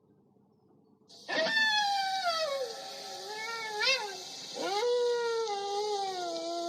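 Creature vocal sound effect: after about a second of near silence, two long, drawn-out animal-like calls that fall in pitch, the first with a quick wavering rise near its end, the second rising at its start and then sliding slowly down, over a steady hiss.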